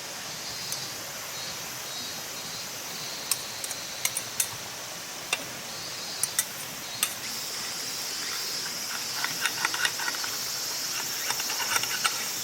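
Crickets chirring steadily in the background, with a scattering of sharp clicks and light taps, which come more often near the end.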